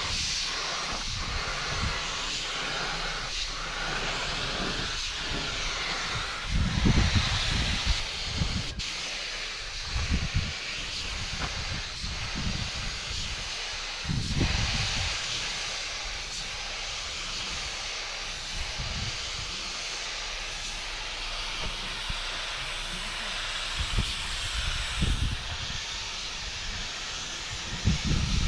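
Compressed-air paint spray gun hissing steadily while spraying a final topcoat onto a truck cab panel, with a few brief low rumbles.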